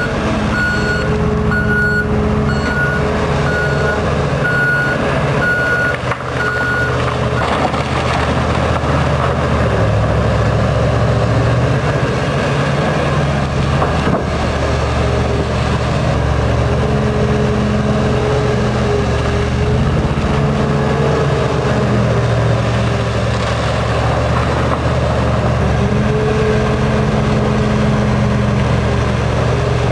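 Heavy diesel mining machinery running loud and steady, its engine note rising and falling with the work. A reversing alarm beeps about once a second for the first seven seconds or so, then stops.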